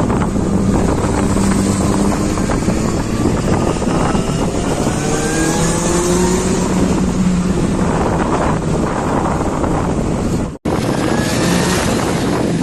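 Benelli 600i motorcycle's inline-four engine and exhaust running hard, its pitch rising several times as it accelerates, with heavy wind noise on the microphone. The sound cuts out for an instant about ten seconds in, then the engine is heard again.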